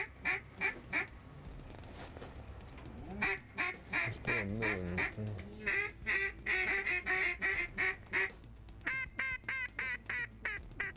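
Duck call blown in strings of quacks, several a second, in three runs, the last a quicker string of rising-and-falling notes.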